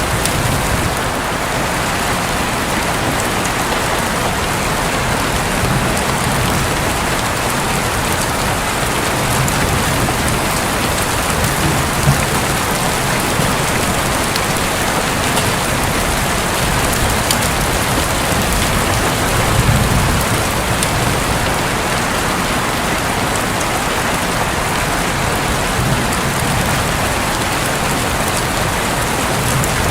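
Heavy rain falling steadily on a roof, with a few low rumbles of thunder now and then.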